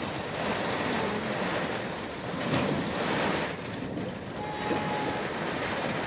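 Heavy rain pouring down, with vehicles driving through deep floodwater on the street.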